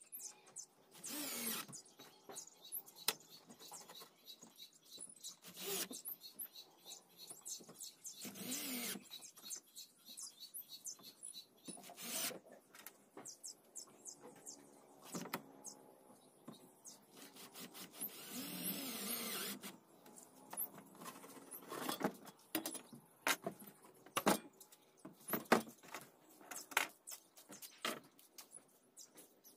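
Cordless drill-driver running in several short bursts, spinning up and winding down each time as it drives screws into metal sliding-door roller brackets. Between the runs come many small clicks and taps of screws and metal fittings being handled.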